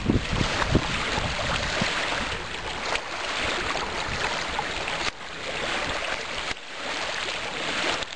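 Water splashing and bubbling at the surface as air vents from the submarine's bow main ballast tank vent while the tank floods, over a steady wash of lake water. Wind buffets the microphone in the first second or so.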